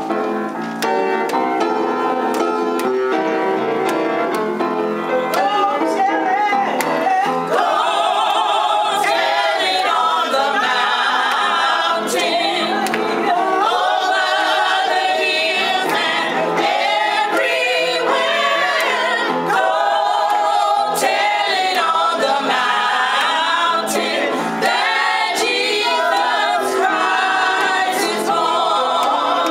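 A women's gospel group singing together in harmony with vibrato. The first several seconds are sustained keyboard chords, and the voices come in strongly about seven seconds in.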